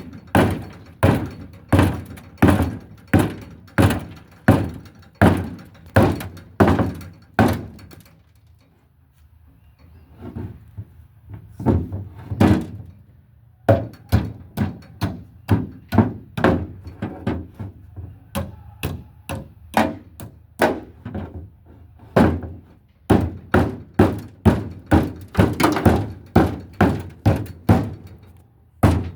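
Repeated heavy thuds like hammer blows, about two a second. They stop for several seconds about a third of the way in, then start again and come a little faster near the end.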